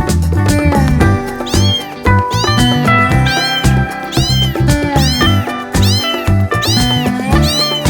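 High-pitched kitten meows, short rising-and-falling calls repeating about once a second, over upbeat background music with a steady beat.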